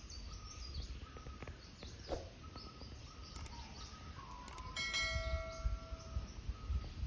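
Subscribe-button sound effect: a couple of clicks, then a bell chime about five seconds in that rings for over a second, over faint outdoor ambience with bird chirps.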